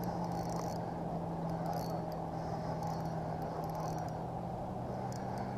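Fishing reel drag buzzing in several short high-pitched spurts as a hooked fish pulls out line, over a steady low hum and background noise.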